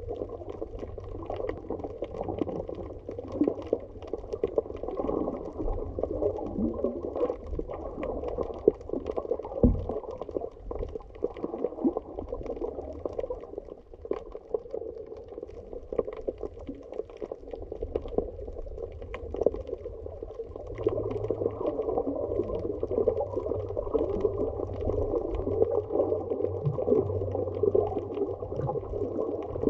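Muffled underwater sound of moving water, with faint scattered clicks throughout. It grows a little louder about two-thirds of the way in.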